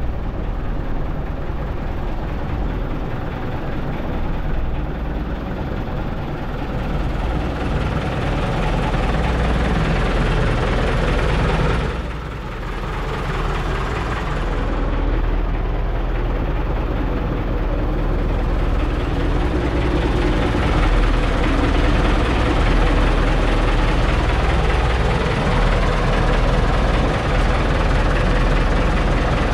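Outrigger boat's engine running steadily while the boat is under way.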